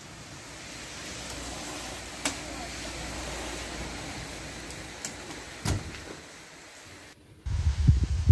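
Steady hiss of rain on wet ground with a low rumble, a sharp click about two seconds in, and a car door slamming shut near six seconds. After a brief break, wind buffets the microphone with a heavy, uneven low throbbing near the end.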